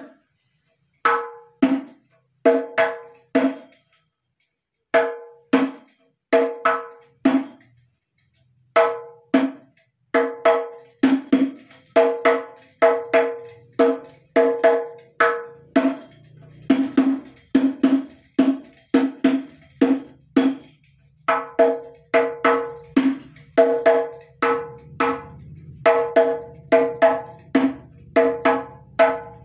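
Hand-played hadroh frame drums (rebana) in a slow-tempo pattern of deep 'dum' and sharper 'tak' strokes, with no singing. A few strokes with short pauses at first, then a continuous, denser rhythm from about ten seconds in.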